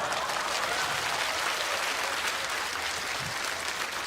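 Studio audience applauding, a steady clapping that eases slightly near the end.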